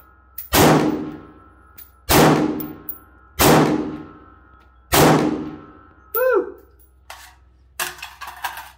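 Five gunshots about a second and a half apart, each ringing out in the range's reverberation, followed near the end by a few light metallic clicks and rattles.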